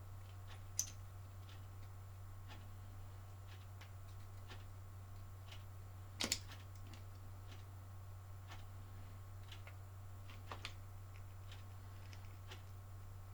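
Quiet room at a workbench: a faint tick about once a second over a steady low hum. A few sharper clicks come through, the loudest about halfway through and a quick double click near the end.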